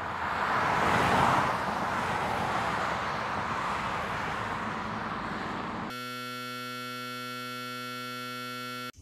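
Intro sound design: a rushing noise swells up and holds. About six seconds in it cuts sharply to a steady electrical buzz, which stops abruptly at the end.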